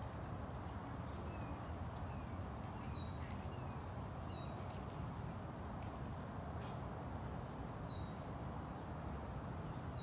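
A bird calling in short, quick down-slurred whistles, about five notes spaced a second or two apart, over a steady low outdoor rumble.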